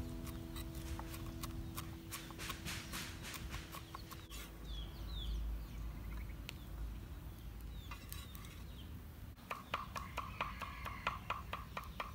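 A large knife chopping on a round wooden chopping board: a string of sharp knocks, uneven at first and becoming a fast, regular run of chops in the last few seconds.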